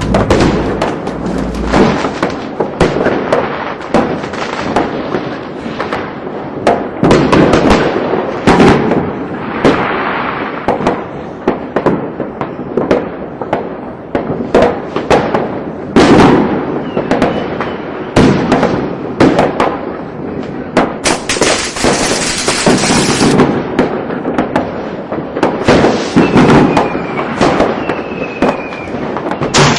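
Fireworks going off in a dense, irregular barrage: rapid crackling and popping firecrackers mixed with heavier bangs. A loud hiss runs for a couple of seconds about two-thirds of the way through, and a few faint falling whistles sound near the end.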